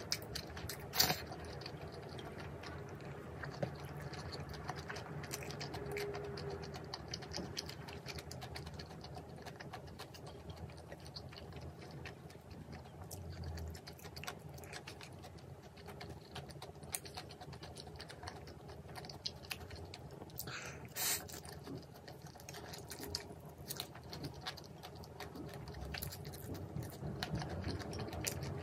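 Close-up eating sounds: chewing with many small clicks and patter throughout, and a few louder sharp clicks about a second in and again around 21 seconds in.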